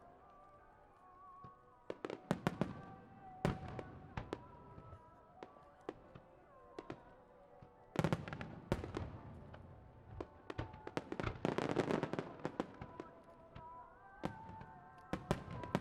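Fireworks display: aerial shells bursting in a long series of sharp bangs, with dense flurries about two, eight, eleven and fifteen seconds in.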